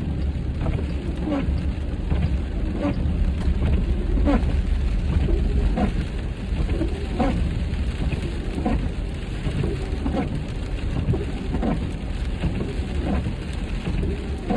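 Rain drops tapping irregularly on a car windshield over a steady low rumble of road and wind noise inside the cabin at highway speed.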